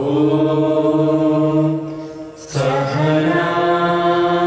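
A group of men and women chanting a prayer together in long, held notes. About two seconds in, the voices pause briefly for a breath, then resume.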